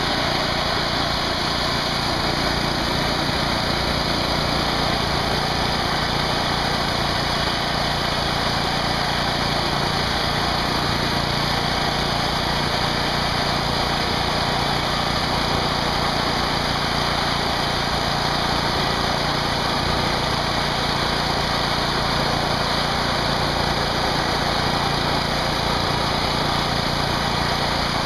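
Pressure washer running steadily: the drone of its small engine under the hiss of the high-pressure water jet spraying into the disks of a boundary-layer Tesla turbine.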